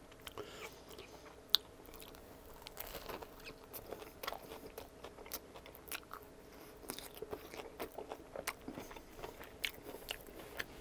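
Close-miked chewing and biting of a panini-pressed Subway sub with ranch dressing, and of a pickled banana pepper ring. Many small wet clicks and crunches, with one sharp click about one and a half seconds in.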